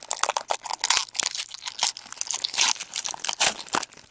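Foil trading-card pack wrapper being torn open and crinkled by hand: a dense run of irregular crackles and tearing.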